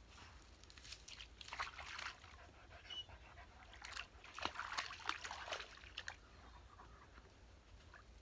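Dogs wading and nosing about in shallow pond water: faint, irregular splashing and sloshing in a few short bursts.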